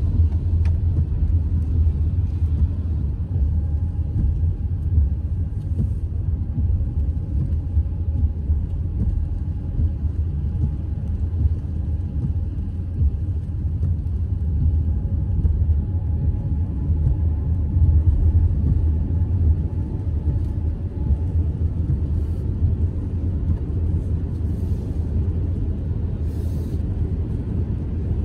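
Steady low road rumble heard inside a moving car's cabin on a wet road, with a faint whine held through the middle stretch.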